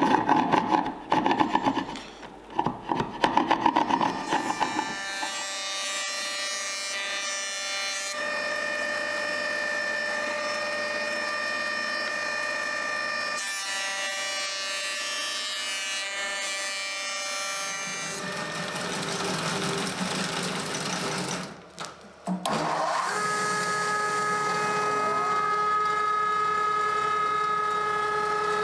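A bench chisel pares wood in a series of short, uneven scraping cuts. Then a Record Power planer-thicknesser runs steadily, cutting the boards. The sound dips briefly a little past the two-thirds mark, and the machine runs on with a steady whine.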